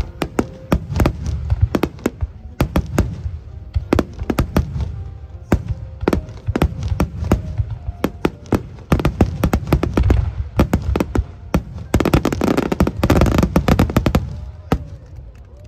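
Fireworks display: a fast string of loud bangs from aerial shells bursting overhead. About twelve seconds in it builds to a dense barrage of crackling bursts lasting a couple of seconds, then eases off near the end.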